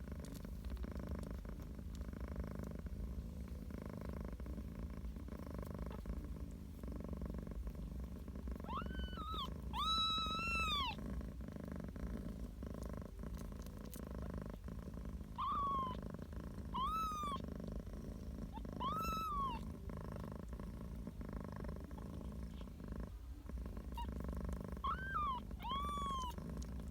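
Domestic cat purring steadily. Over the purr come about seven short, high-pitched calls that rise and fall, the longest and loudest about ten seconds in and a cluster near the end.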